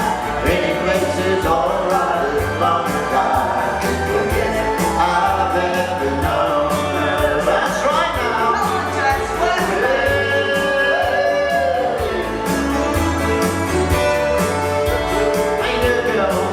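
Live country music: a vocal melody sung over a steady bass line and accompaniment, with no clear words.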